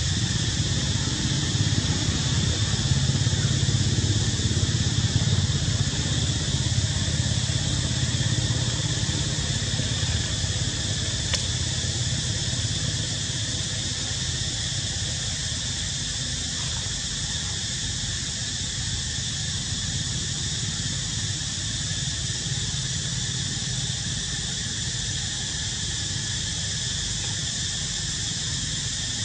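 Steady, high-pitched insect drone, unbroken throughout, over a low rumble that eases off about ten seconds in.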